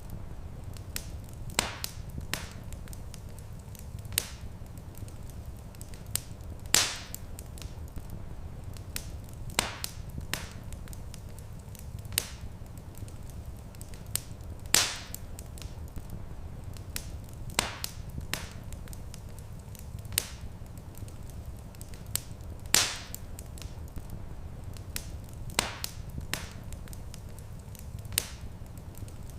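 Wood fire crackling in a stone fireplace: sharp pops every second or two, a few of them much louder, over a steady low rumble of room tone.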